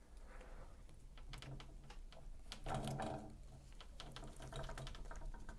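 Captains of Crush No. 2.5 torsion-spring hand gripper being squeezed hard, its spring coil rubbing with a run of rapid clicks and rasping as the drying grease lets it scratch instead of squeak, with strained grunts from the effort.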